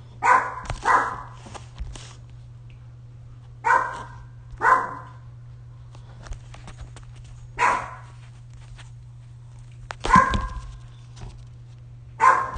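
Domestic cat meowing loudly, about seven short calls a second or more apart, the first four in two pairs.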